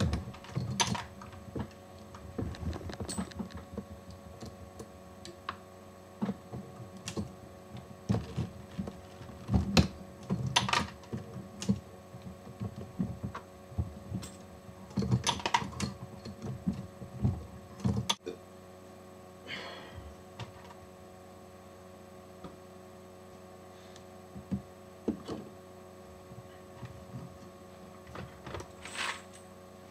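Hornady Lock-N-Load AP progressive reloading press being cycled by hand: irregular metallic clicks and clunks as the handle is worked and cases and bullets are set in, over a steady electrical hum. The clatter is busy in the first half and sparser after a sharp click about halfway through.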